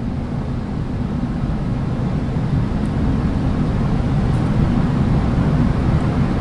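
A steady low rumble with no clear pitch, loud and even throughout.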